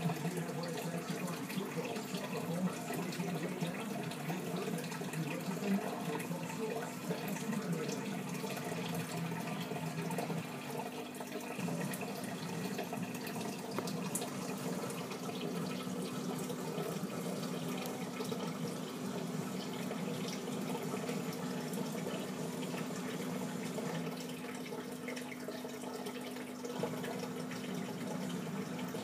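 Aquarium filter running: a steady trickling and bubbling of water with a constant low hum.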